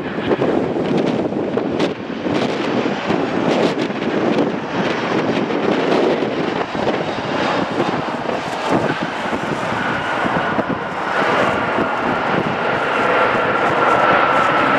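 Boeing 737-800 jet airliner's CFM56 engines rushing through touchdown and rollout on a wet runway. A steady high whine comes in about two-thirds of the way through, and the engines grow louder near the end.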